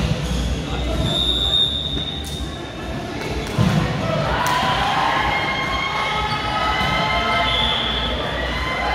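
A ball thudding repeatedly on a hard indoor court during a match, with brief high-pitched squeaks over it.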